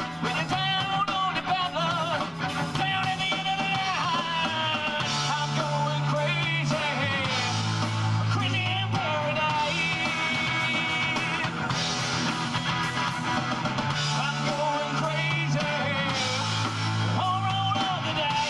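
Live rock band playing: electric guitars, bass and drums, with a lead melody that bends in pitch over a bass line that shifts notes every second or two.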